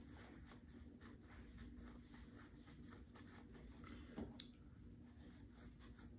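Faint, irregular snips of small scissors cutting through the folded denim of a jeans leg, with a slightly louder click about four seconds in.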